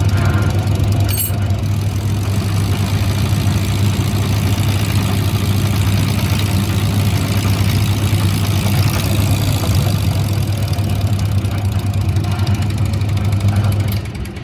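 A machine running at a steady speed with a constant low hum while a repaired diesel fuel injection pump is checked, stopping sharply near the end.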